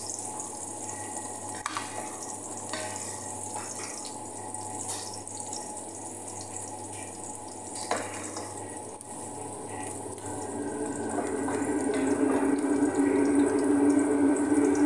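Chopped onions sautéing in an aluminium pot, stirred with a wooden spoon that knocks against the pot now and then. A louder steady hum builds up about two-thirds of the way in.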